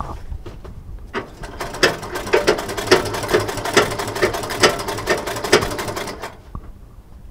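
Sewing machine stitching the front pocket onto denim jeans. It starts about a second in, runs fast and steady with a regular clack about twice a second, and stops about six seconds in.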